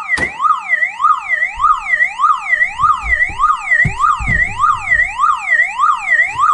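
Battery-backed car alarm siren unit sounding continuously: a rapid up-and-down warble of about two sweeps a second. A few low knocks come around the middle.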